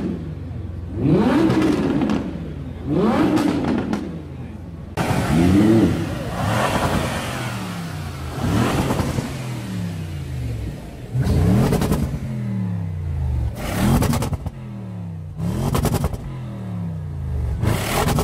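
An Audi R8 V10 Plus's V10 engine is revved in short blips, twice. Then, from about five seconds in, an Audi RS6's engine is blipped about six times, roughly every two seconds, each rev rising and falling back to idle.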